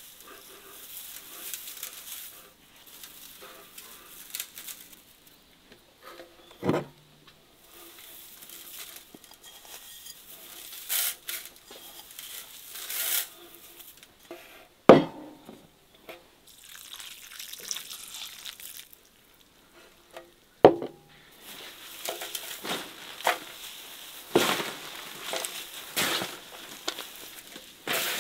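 Hands tossing and mixing a heap of shredded cabbage, carrot, herbs and peppers in a large metal basin: irregular rustling and crunching, busier near the end. A few sharp knocks stand out, the loudest about halfway through.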